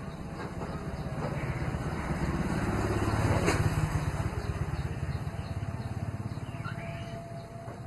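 A motor vehicle passing by, its engine growing louder to a peak about three seconds in, then fading away.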